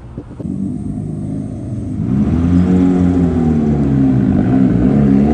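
A modified Mazda Miata drives past with its engine running. A low rumble builds for the first two seconds, then the engine note comes in loud, rises and eases back down as the car passes.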